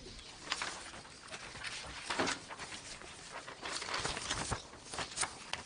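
Sheets of paper being handled and leafed through on a table, a string of irregular rustles and light knocks.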